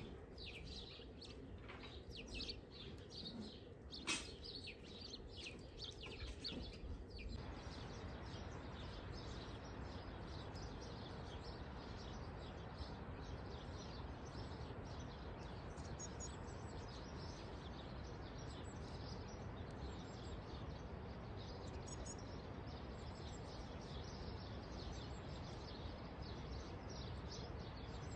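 Small birds chirping again and again over a faint, steady outdoor hiss. The hiss becomes fuller about seven seconds in. There is a single click about four seconds in.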